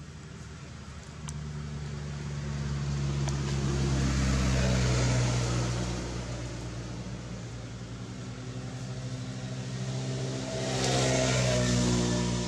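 Motor vehicles driving past: an engine grows louder to a peak about four seconds in and fades, then a second engine passes near the end, its pitch dropping as it goes by.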